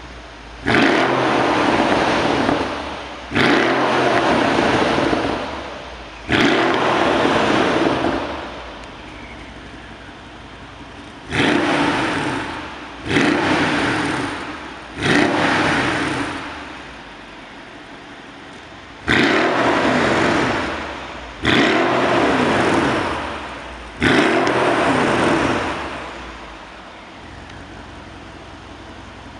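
Brabus B63-620 Mercedes CLS 63 AMG twin-turbo V8 with its Brabus exhaust, revved while standing: nine quick throttle blips, each rising sharply and then falling slowly back to a steady idle.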